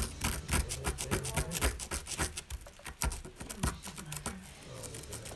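A small plastic scooper scratching and scraping at a dusty dig block from a gold-digging excavation kit, in quick irregular strokes, several a second.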